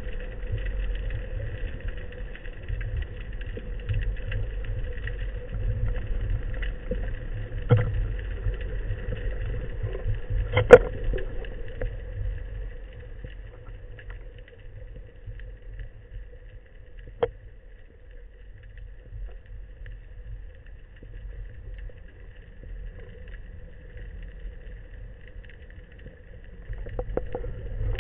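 Muffled underwater sound through a camera's waterproof housing: a low rumble under a faint steady hum, with a few sharp clicks, the loudest about ten seconds in. The rumble drops away about halfway through.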